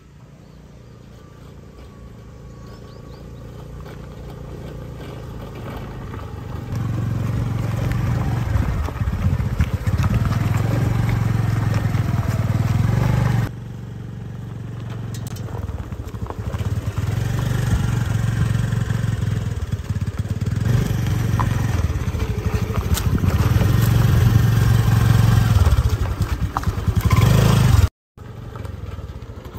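Honda scooter's single-cylinder engine approaching, getting steadily louder. It drops back suddenly about halfway through, builds again, and cuts out for a moment near the end.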